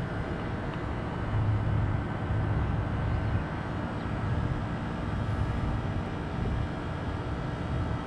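Trane XB13 heat pump running in its defrost cycle, melting frost off its outdoor coil: a steady machine hum with several held tones over an uneven low rumble.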